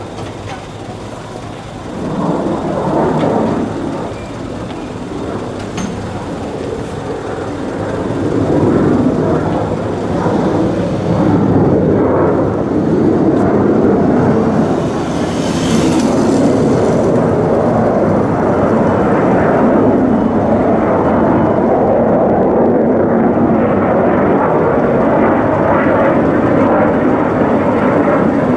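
Military fixed-wing aircraft flying over, its engine roar building from about eight seconds in and then staying loud and steady.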